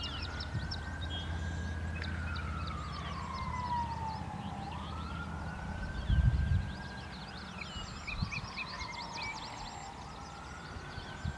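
A siren wailing in slow cycles: its pitch climbs, holds, then slides down over about four to five seconds before climbing again. Small birds chirp throughout, and a gust of wind buffets the microphone about six seconds in.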